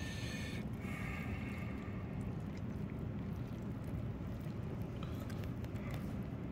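Wooden chopsticks stirring sauce-coated instant noodles in a paper cup, with soft wet squishing and a few light clicks, over a steady low background rumble.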